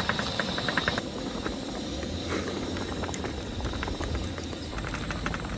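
Propane camp stove burning steadily under a pan of chili with a little water in it, a low rush with simmering, and a rapid even ticking that stops about a second in.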